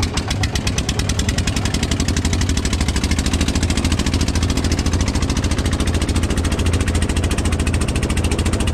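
Ferry engine running steadily at close range just after being started, with a rapid, even knocking beat.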